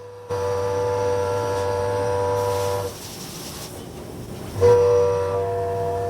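Haas CNC mill cutting a part, the tool giving off a loud, steady pitched whine with overtones over a low hum. It drops away about three seconds in and comes back louder a second and a half later.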